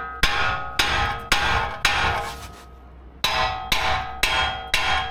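Small hammer striking steel on the front wheel hub and axle assembly to knock it loose, each blow ringing. Four blows about half a second apart, a short pause, then four more.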